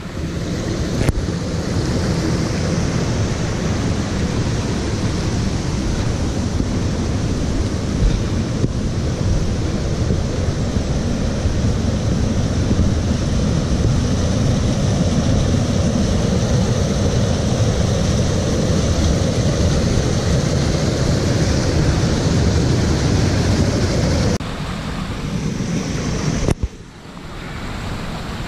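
Steady rush of a small stream cascading over rocks, close by, with some wind noise on the microphone; it drops somewhat in level near the end.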